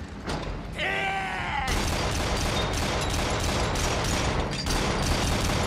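A short shouted cry about a second in. It is followed by dense, rapid anti-aircraft gunfire that goes on without a break: a battle soundtrack of shipboard machine guns firing at attacking aircraft.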